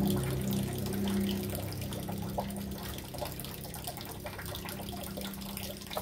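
A steady low mechanical hum from an unseen machine fades slowly. Over it come a few light metal clicks as a chainsaw's guide bar and chain are handled and fitted, and a sharp knock near the end.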